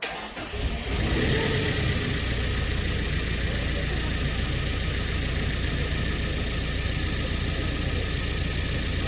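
Freshly rebuilt Nissan CA18DET turbocharged 1.8-litre twin-cam four-cylinder engine running at a steady idle, with a strong low rumble.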